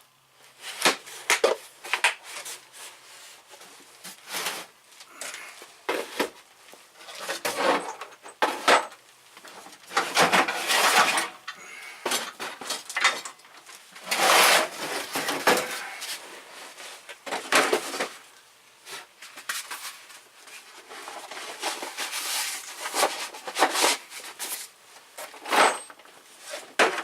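Tools and tool kits being handled in a tool box: an irregular run of clicks, clatters and scraping rattles, with the louder clusters about 10, 14 to 16 and 26 seconds in.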